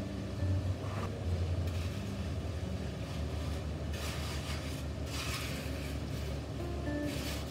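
A long straightedge scraped across wet concrete as it is screeded level, in a few strokes that are clearest in the second half, over a steady low hum from a running machine.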